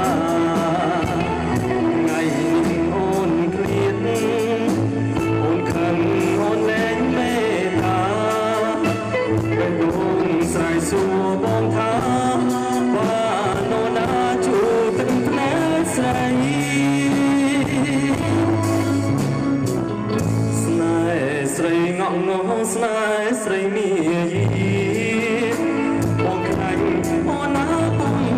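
A male singer singing into a handheld microphone with a live band behind him, the drum kit's cymbals and a steady bass line under his melody.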